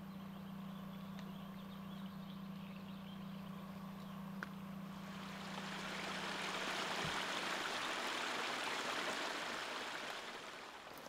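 Running water rushing, swelling from about five seconds in and fading again near the end, over a low steady hum that cuts off abruptly about seven seconds in.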